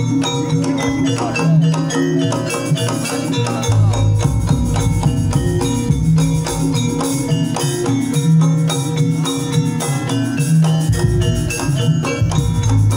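East Javanese jaranan gamelan played live: ringing metallophones over drums in a fast, steady rhythm. A deep low tone comes in about four seconds in and drops out near eleven seconds.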